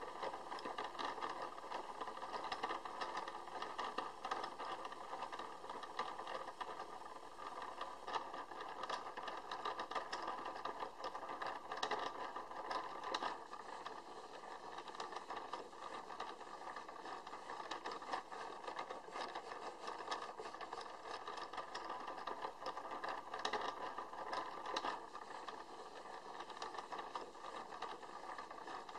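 Gear train of a small kinetic artwork running: a steady, dense clicking and rattling of meshing gears.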